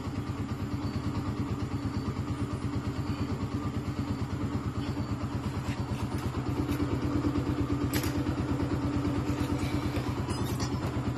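Motorcycle engine idling steadily, a rapid even putter, with a few light metallic clicks from work on the bike.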